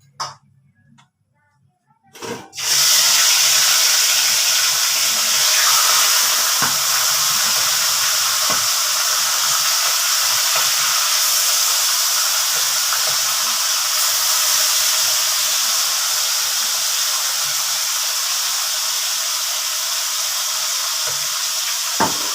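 Fish frying in hot oil in a pan: a loud, steady sizzle that starts suddenly about two and a half seconds in, after near quiet, and eases only slowly.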